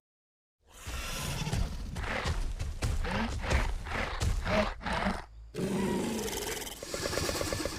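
Demon creature sound effects: a string of short snarling, grunting cries, about two a second, then a longer growl that turns into a fast rattling purr near the end.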